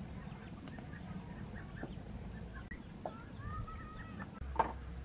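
Poultry calling in many short repeated calls, with one longer arched call a little past the middle. A sharp knock near the end is the loudest sound.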